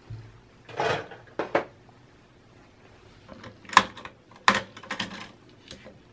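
Hands handling the parts of a desktop computer being taken apart: a short scrape about a second in, then scattered sharp clicks and knocks, clustered around four to five seconds in.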